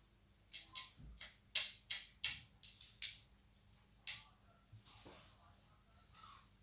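A hand working damp parboiled rice with salt water on a ceramic plate: the grains rustle and scrape against the plate in a quick series of short strokes, about two or three a second, which thin out after about four seconds.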